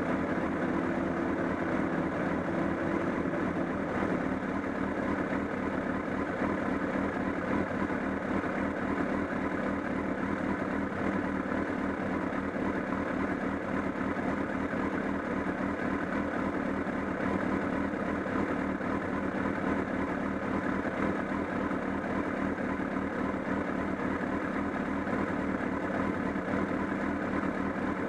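Honda CBR1000RR inline four-cylinder engine idling steadily with the flapping, clattering noise (bata-bata) from around the engine that the owner reports has grown stronger along with a loss of torque.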